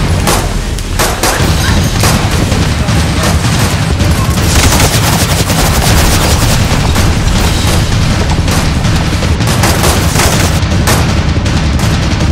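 Pistol gunfire in a film gunfight: shot after shot at an uneven, rapid pace, thickest about four to five seconds in, over a continuous deep rumble.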